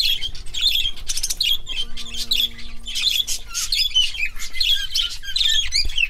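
A flock of caged parakeets chattering, with quick, overlapping high calls throughout.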